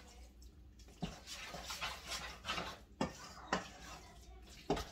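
Wet, onion-heavy minced-meat filling being beaten and stirred in a bowl: soft wet mixing with four sharp knocks against the bowl, the loudest near the end.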